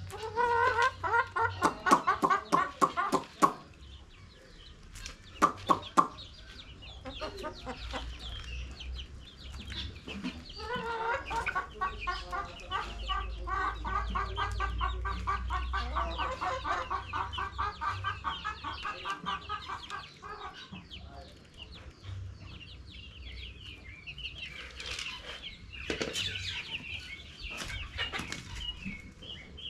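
Chickens clucking in rapid runs of calls: a short run at the start and a long run of about ten seconds in the middle, with a few sharp knocks in between.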